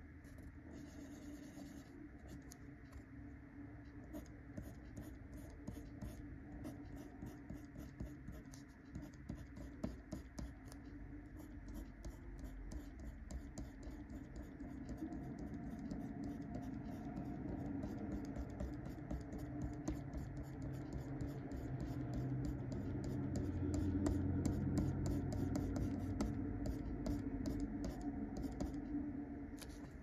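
Uni Kuru Toga 0.5 mm mechanical pencil with 2B Pentel lead scratching on paper in many quick, short strokes. It grows louder in the second half.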